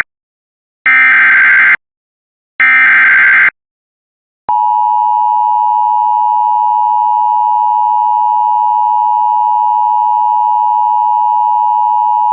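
Emergency Alert System alert opening: two short digital SAME header data bursts, each just under a second long with a gap between them, then after a pause a steady two-tone EAS attention signal held for about eight seconds. It marks the start of a severe thunderstorm warning.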